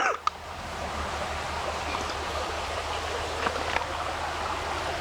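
Small mountain creek flowing steadily over rocks, a constant rushing of water, with a few faint clicks.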